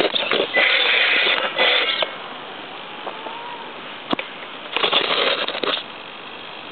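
RC crawler's electric motor and homemade gearbox running in bursts: about two seconds at the start, then again for about a second near the five-second mark, with a single sharp click about four seconds in.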